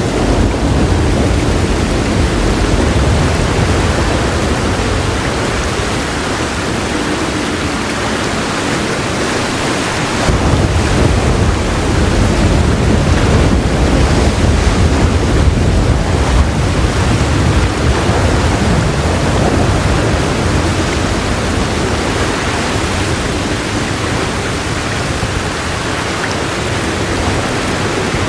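Heavy rain falling in a steady hiss, with low rolls of thunder underneath. A deep rumble eases off, then swells again about a third of the way in and slowly fades.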